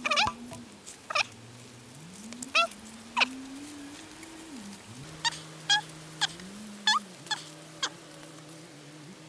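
Squeaking of fresh cattail leaves as they are bent and pressed into a weave: a dozen or so short, sharp squeaks, each falling in pitch, coming at irregular intervals. A faint low tone rising and falling in pitch runs underneath.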